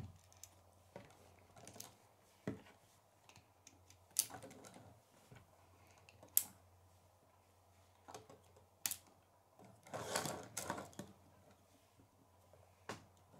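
Hard plastic K'nex pieces clicking and clattering as they are handled and fitted onto a toy car: scattered sharp clicks, with a longer run of clatter about ten seconds in.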